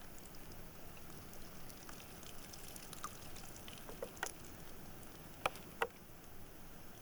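Water splashing and trickling as freshly picked forest mushrooms are rinsed, with scattered small ticks of handling. Two sharp clicks a third of a second apart come a little past halfway.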